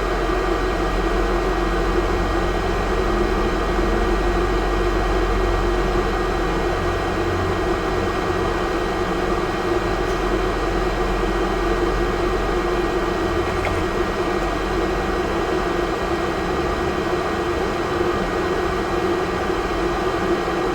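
Steady whirring hum of a small electric fan, even and unchanging throughout.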